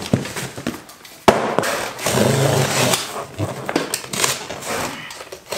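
A large cardboard parcel being handled: a sharp knock about a second in, then a few seconds of cardboard and packing tape scraping, rustling and crackling under the hands.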